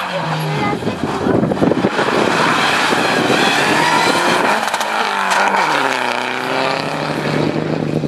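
Rally car driven hard at speed, engine revving loud with tyre and road noise. About two-thirds of the way through, the engine pitch falls steeply, then it settles into a steady note.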